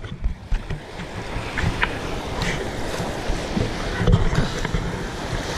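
River rapids rushing and splashing around a canoe running whitewater, with wind buffeting the microphone in low gusts. The sound is muffled for about the first second, then opens up.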